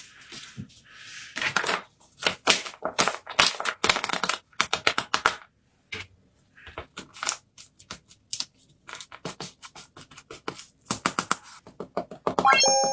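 Paper being handled close up: crinkling and rustling in short, irregular bursts with brief pauses.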